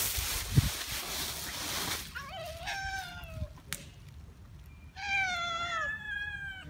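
Hungry stray cats meowing: two drawn-out meows, each falling in pitch, the second longer and louder, about two seconds and five seconds in. Before them comes a couple of seconds of rustling noise, and a single sharp click falls between the meows.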